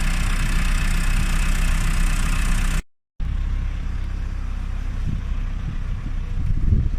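Tractor engine running steadily. The sound cuts out for a moment just under three seconds in, then the engine continues more faintly, with low irregular thumps near the end.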